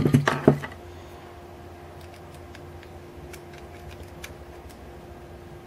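Small metal clicks and ticks of tweezers picking at a lube-caked shim on an airsoft gearbox's crown gear, after a brief clatter of handled parts at the start. A steady low hum runs underneath.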